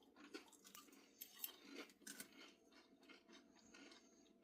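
Near silence with a few faint, scattered crunches: someone chewing chips.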